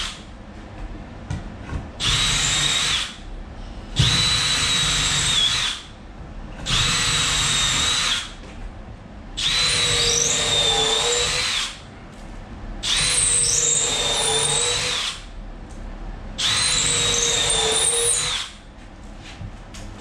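Cordless drill driving screws into a wooden board on the wall. It runs in six separate bursts of about one to two seconds each, a steady whine each time, with short pauses between.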